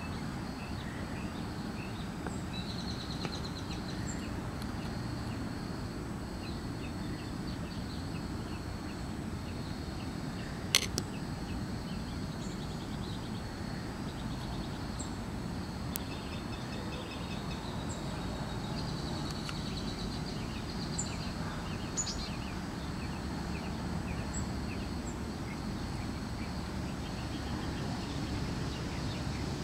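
Outdoor ambience: a steady low rumble with faint bird chirps and trills, and one sharp click about eleven seconds in. The slug feeding makes no sound that can be heard.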